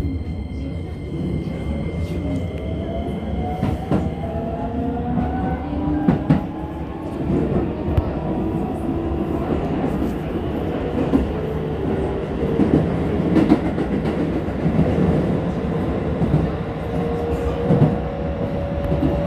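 Keisei 3000 series electric train accelerating. The whine of its inverter-driven traction motors rises steadily in pitch over a rumble of wheels on rail, with scattered clicks at rail joints.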